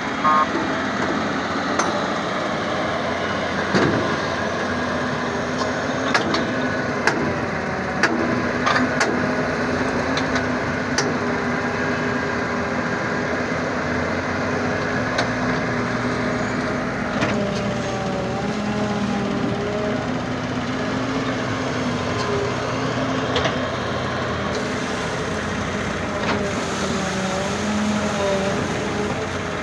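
Heavy machine's engine running steadily, its pitch wandering up and down as it works, with scattered sharp knocks and clanks.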